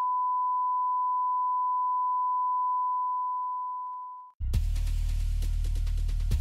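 A steady, high-pitched censorship bleep tone, fading out over its last second or so and stopping about four seconds in. Music with heavy bass and a steady beat then cuts in abruptly.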